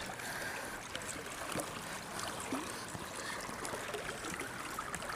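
Faint, steady trickle of moving river water lapping close by, with a few small clicks scattered through it.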